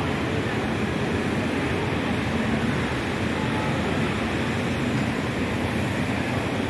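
Steady road traffic noise, an even continuous hum with no single event standing out.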